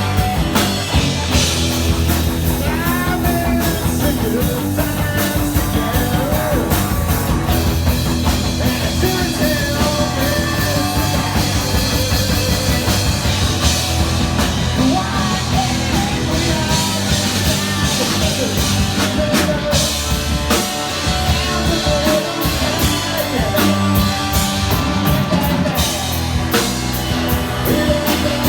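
A rock band playing live, with electric guitars, bass and a drum kit, and a vocalist singing over them.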